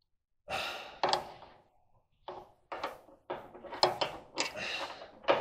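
Metal parts clanking and rattling as a belt idler pulley and its tension spring are worked into place against the appliance's sheet-metal frame. An irregular run of knocks and scrapes, the loudest near the end.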